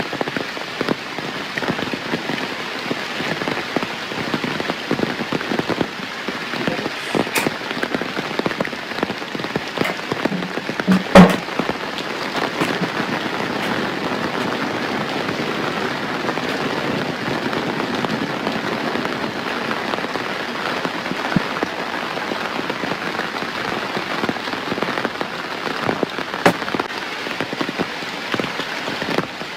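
Steady rain falling on surfaces, with many close drops ticking here and there. A single sharp knock, much louder than the rain, stands out about eleven seconds in.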